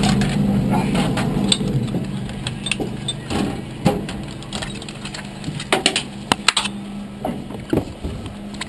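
Sharp clicks and knocks of hands and gear moving around a stock car's cockpit, over a low engine hum that fades during the first couple of seconds and then stays faint.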